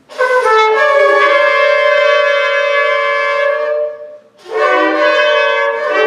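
Shofar blown in two long blasts. Each opens with a short rise in pitch and then holds one steady note; the first lasts about three and a half seconds, and after a brief break the second starts about four seconds in.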